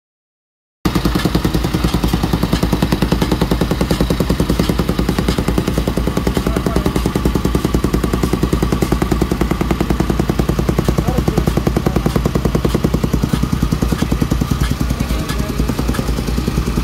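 A small-engine tamping rammer (jumping-jack compactor) running at full throttle, pounding gravel backfill in rapid, even blows. It starts abruptly about a second in.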